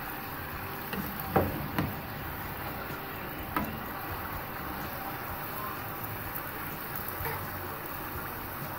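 Sweet potato fries deep-frying in hot oil, steadily sizzling as they turn light golden. A few sharp clicks come about a second and a half in and again near three and a half seconds.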